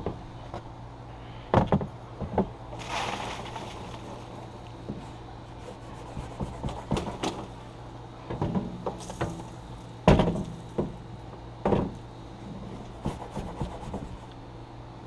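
Grill parts being knocked and scraped during cleaning: several sharp knocks, the loudest about ten seconds in, with a stretch of scraping around three seconds in and lighter clattering between.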